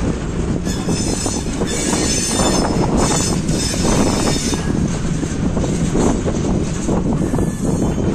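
Long container freight train of loaded flatcars rolling past on the rails, with a high wheel squeal that comes and goes.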